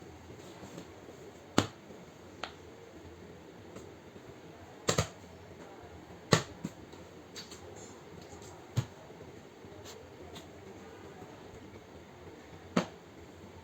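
Scattered sharp clicks and taps over a low room hiss: about seven at irregular times, one of them doubled about five seconds in, and the loudest a little after six seconds.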